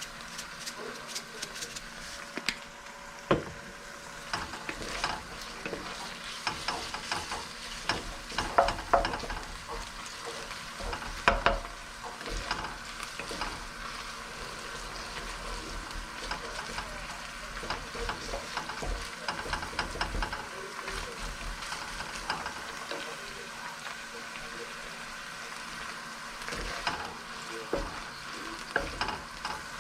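Pork and egg fried rice sizzling in a pan as it is stir-fried, with frequent scrapes and knocks of a spatula against the pan, a few louder ones scattered through.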